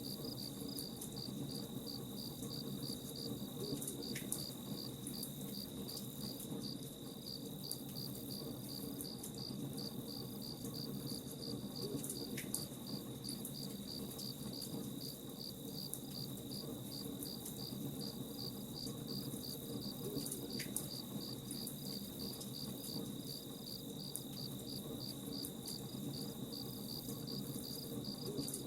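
Crickets chirping steadily in a fast, even pulse over a low, steady rumble, with a few faint sharp crackles from a campfire.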